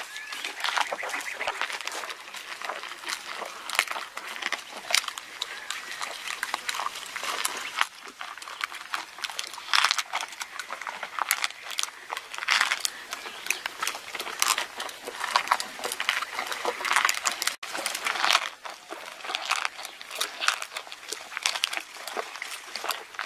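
Camel chewing a spiny prickly pear cactus pad close to the microphone: irregular wet crunching and smacking with sharp crackles as the pad is bitten and ground between its jaws.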